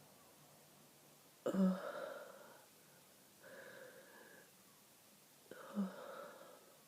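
Two sneezes from a person with a stuffed-up head cold, about four seconds apart, each starting suddenly and trailing off over about a second, with a softer breath-like sound between them.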